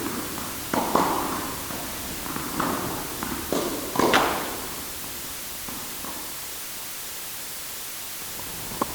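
Sports practice ambience recorded in a large hall: a handful of sharp ball hits and knocks, each with a short echoing tail, the loudest about four seconds in. A steady background hiss follows, with a couple of light clicks near the end.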